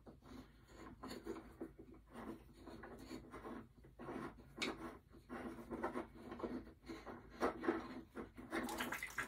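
Threaded pipe fitting, doped with pipe dope, being turned by hand in a pump's threaded port: a string of short, irregular scraping and rubbing sounds as the threads turn. The fitting is being worked because it is not yet seated properly.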